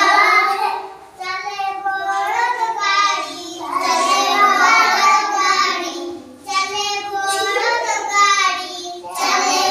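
Young children singing a song, in sung phrases broken by short pauses.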